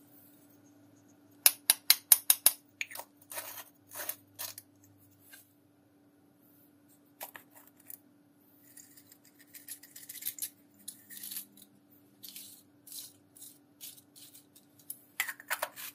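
Small plastic pots tapped and shaken over a plate: a run of about seven quick, sharp clicks about a second and a half in, then scattered clicks and rattling as plastic sequins are shaken out of a plastic pot, with a last quick burst of rattles near the end.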